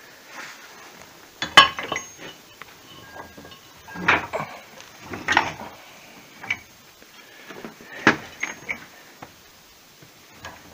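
Metal parts clinking and knocking against each other: about four sharp hits with a short ring, the loudest about one and a half seconds in, with fainter clinks between.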